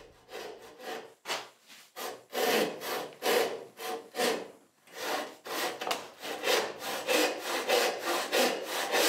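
Homemade Roubo frame saw resawing a board held upright in a vise: rasping push-and-pull strokes through the wood, light and short at first as the cut is started on the scribe line, then strong and even at about two to three strokes a second, with a brief pause about halfway through.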